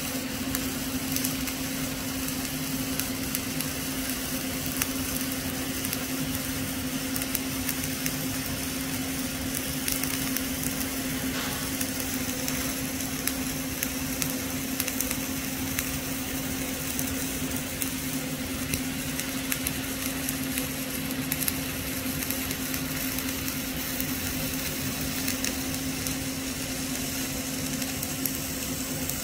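CO2-shielded flux-cored arc welding on a root pass: the arc crackles and sizzles steadily without a break, over a steady low hum.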